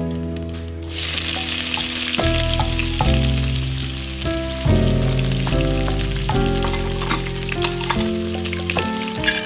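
Food sizzling as it fries in hot oil in a pan. The sizzle starts suddenly about a second in and goes on steadily, over background music.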